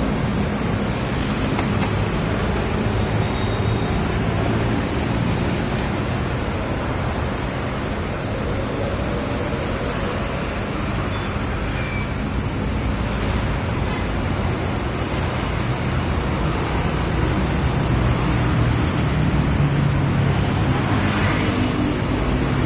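Steady low mechanical rumble with a hiss of background noise, unchanging throughout.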